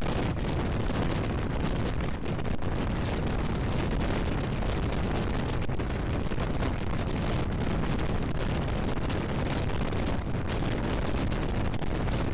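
Moving train running steadily, a low rumble under a constant rush of wind buffeting the microphone.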